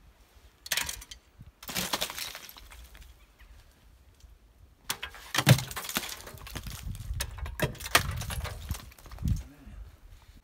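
Large icicles along a roof edge being knocked down with a long pole: ice cracking and shattering in several separate bursts, the loudest about halfway through.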